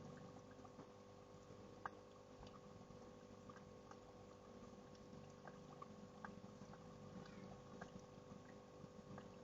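Faint trickling and dripping water with scattered small clicks over a steady low hum.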